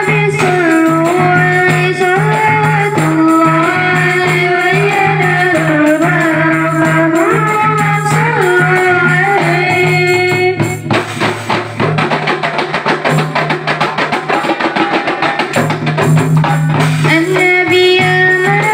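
Marawis ensemble music: a wavering, ornamented melody over a steady low drone, with hand drums. For several seconds in the middle the melody drops out and only fast, dense drumming is heard, then the melody comes back near the end.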